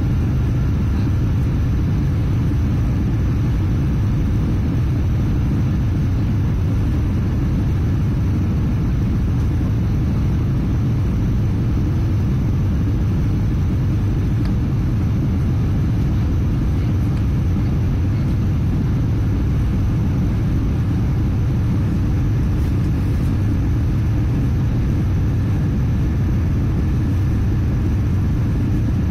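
Airbus A319 cabin noise on approach: a steady, even low rumble of airflow and jet engines heard from a seat inside the cabin.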